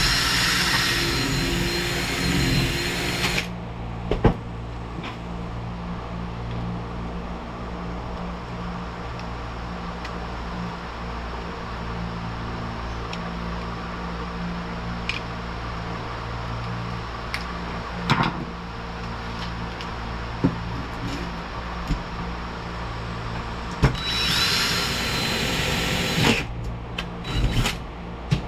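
Electric drill running in two bursts, drilling out a rivet in a steel vent-window frame, each burst with a steady high whine. The first lasts about three and a half seconds at the start, the second about two seconds near the end. In between there is a steady low hum with a few scattered clicks and knocks.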